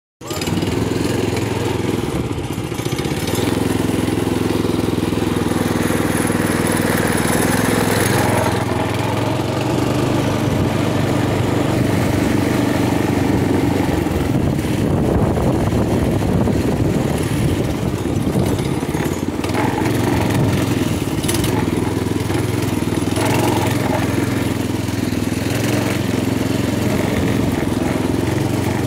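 TrailMaster MB200 minibike's small single-cylinder four-stroke engine running under way. The engine speed changes a few times as the throttle is worked.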